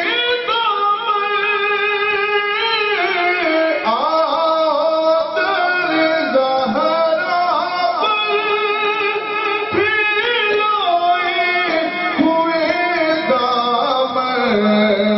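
A man singing devotional verse solo, holding long ornamented notes that bend and waver. A low steady note comes in near the end.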